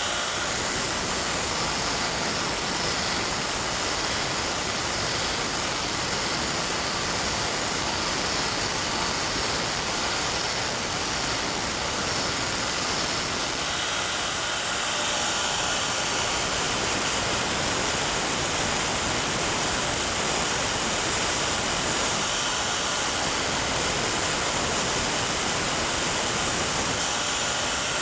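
Power grinder running steadily as it grinds down the striking surface of a steel farrier's tool, flattening its rounded dome; an even, unbroken hiss.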